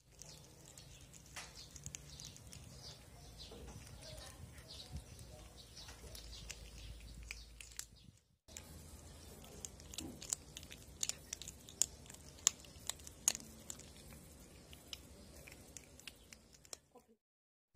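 A cat chewing and crunching a raw fish head, with a run of sharp, crackling bites on the bones, most frequent in the latter half.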